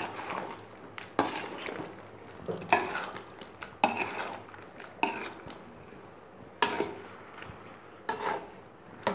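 Metal slotted spoon stirring chunks of vegetable in a metal pot, with a sharp scrape or knock against the pot about every second and a half.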